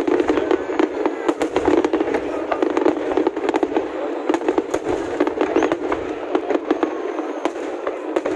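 Aerial fireworks display: a dense, unbroken run of shell bursts, sharp pops and crackling stars going off in quick, irregular succession.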